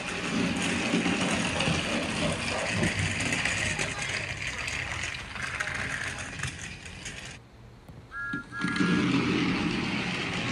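Battery-powered toy train running along its track, its small motor giving a steady running noise. The sound drops out briefly about three-quarters of the way in, then returns with a few short high beeps.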